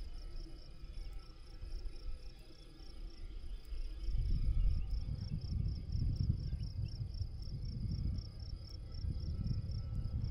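An insect chirping in a steady high-pitched pulse, about three or four chirps a second, like a field cricket in the meadow grass. From about four seconds in, wind rumbles on the microphone.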